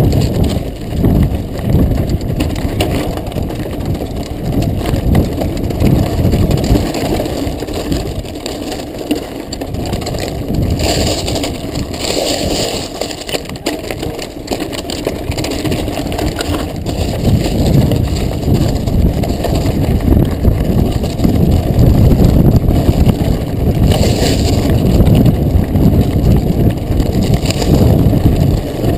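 Mountain bike riding fast down a rocky trail: the tyres crunch over loose volcanic gravel and lava rock while the bike rattles and jolts continuously.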